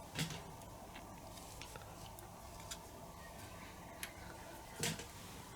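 Small metal clicks and taps of a hand tool working the tabs off a small DC hub motor's can to open it, with two louder clicks, one just after the start and one near the end, among fainter ticks.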